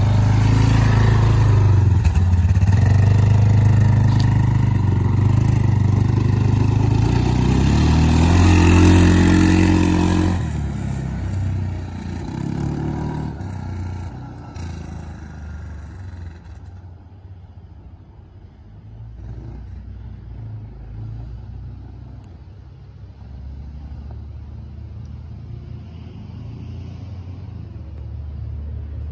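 Suzuki KingQuad ATV's single-cylinder engine running close by and revving, then pulling away about ten seconds in and fading as it travels down the road, growing a little louder again near the end as it comes back. The owner feels the quad is down on power and suspects a worn or dirty clutch.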